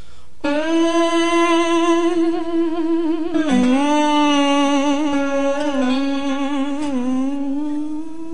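Soundtrack music: a single voice singing long, wordless held notes with a slight waver, coming in about half a second in and dipping in pitch a few times.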